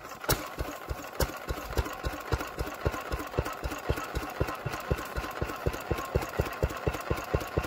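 Vintage single-cylinder stationary engine running steadily on its own, with an even beat about five times a second.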